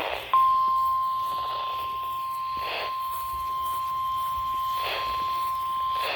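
NOAA Weather Radio warning alarm tone, a single steady tone of about 1050 Hz, played through a Midland ER210 weather radio's speaker during a required weekly test. It cuts in about a third of a second in and holds at an even pitch and level, with faint static swelling every couple of seconds.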